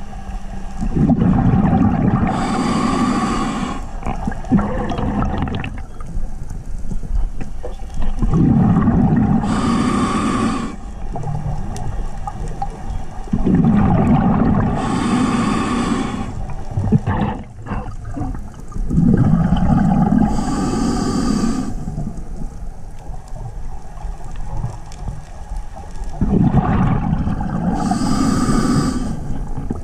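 A scuba diver breathing underwater through a regulator: five regular breaths, about one every five to six seconds, each a low rumble of exhaled bubbles together with a hiss.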